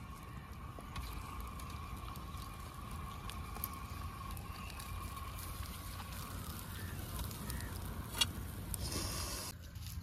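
Open wood fire burning and crackling, with a steady high tone running through most of it and a single sharp click about eight seconds in.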